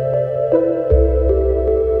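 Ambient new-age background music: held synthesizer chords over a bass note that changes about every second and a half, with a soft regular ticking beat.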